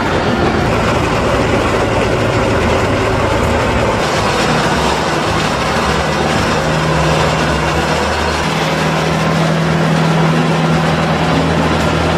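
Tractor engine running steadily under the dense mechanical noise of a feed wagon working as it discharges fresh-cut grass; the engine hum changes pitch a few seconds in.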